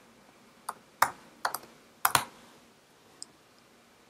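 Typing on a computer keyboard: about seven irregular keystrokes, bunched between about one and two seconds in, with one fainter keystroke near the end.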